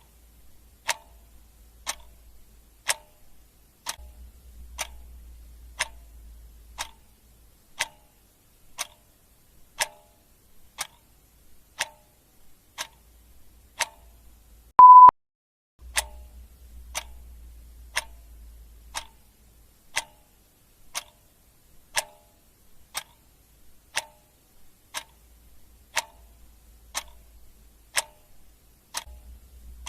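Clock ticking sound effect, one sharp tick each second. About halfway through there is a single short, loud beep.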